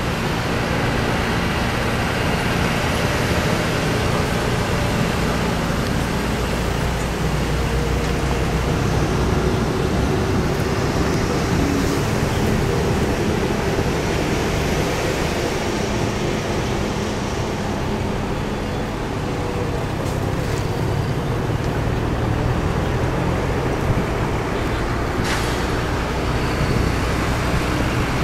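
Vehicle driving along a road: a steady engine hum and road noise with no pauses.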